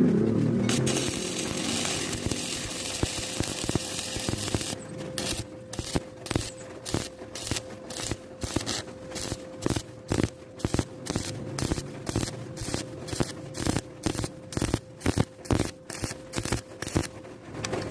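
Stick-welding arc crackling and sizzling steadily for about four seconds, then in short regular bursts about twice a second, as from a whipping or stitching rod motion, over a steady hum.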